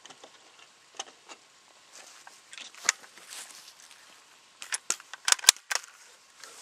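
Scattered clicks and crunches close to the microphone, then a quick cluster of sharp knocks about five seconds in: someone moving and handling gear right beside the camera, with no shot fired.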